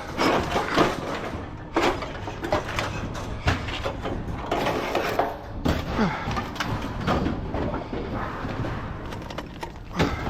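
Scrap metal clanking and banging, many irregular knocks and clatters as pieces are pulled off a trailer and dropped, over a steady low hum.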